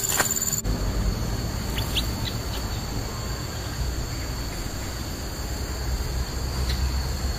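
Forest ambience: a steady high insect drone over a low rumble, with a few short bird chirps about two seconds in.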